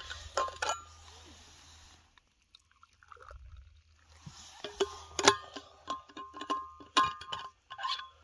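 Stainless steel vacuum flask handled: its metal lid and cup clink and ring. There is a cluster of clinks at the start and a quick run of them from about five seconds in, with a soft hiss in the first two seconds.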